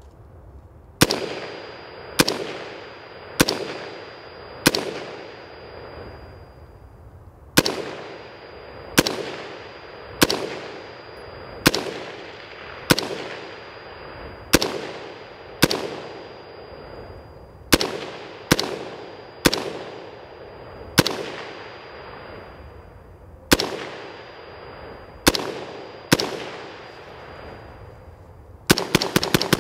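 Brownells BRN-Proto AR-15 replica rifle firing single shots about once a second, each crack echoing and dying away slowly. Near the end comes a fast string of shots as the semi-automatic rifle is bump fired.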